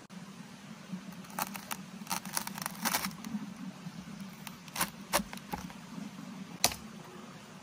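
Scattered clicks and knocks of cut banana-trunk logs and green poles being handled and pressed into place on a log platform. They come in a cluster from about a second and a half to three seconds in, then singly, with the sharpest knock near the end, over a low steady hum.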